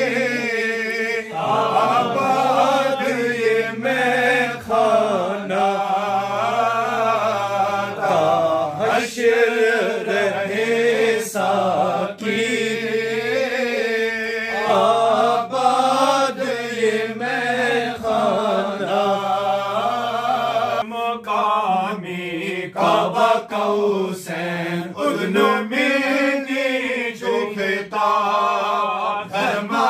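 Men chanting a devotional Urdu naat together in one melodic line, with long, wavering held notes.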